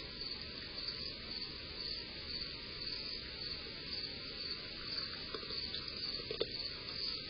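Crickets chirping in a steady pulsing rhythm over a constant background hiss, with a few faint clicks.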